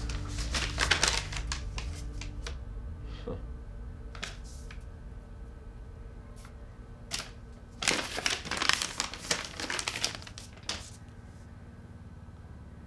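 Rustling, crinkling handling noises in two flurries, one at the start and a longer one from about eight to eleven seconds in, with a few separate light ticks between them.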